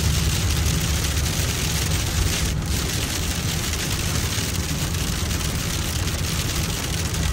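Steady road noise inside a moving car on a wet road: a low engine and tyre rumble under an even hiss of tyres on the wet surface and falling snow and slush on the windscreen.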